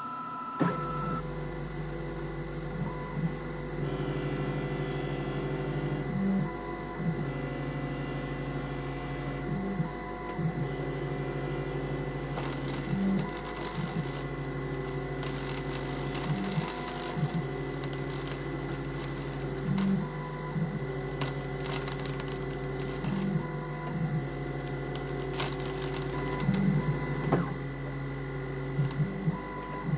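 Rownd desktop CNC lathe turning aluminium bar stock: a steady hum with the whine of its motors, whose tones shift in a pattern that repeats about every three seconds, and scattered sharp ticks.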